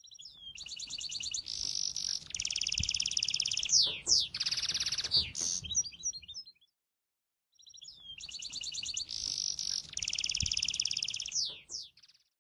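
Songbird singing in high, fast trills and quick falling notes. The same phrase of about six seconds plays twice, with a brief silent gap between.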